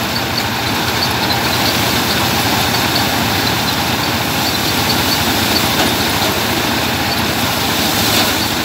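Belt-driven paddy (rice) thresher running steadily as bundles of rice stalks are fed into its drum: a loud, even mechanical din with a low machine hum beneath. Faint high ticks repeat about three or four times a second.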